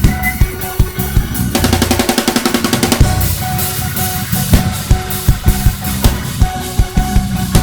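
Live gospel band playing without vocals: a drum kit with bass drum and snare hits, a fast drum roll of rapid strokes from about a second and a half in to three seconds, over sustained keyboard chords.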